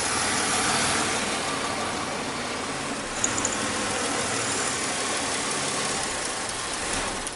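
2005 Chevy Impala engine running steadily, then cutting out abruptly near the end as its injector and cam sensor wiring harness is pulled: a stall that points to a bad connection in that harness.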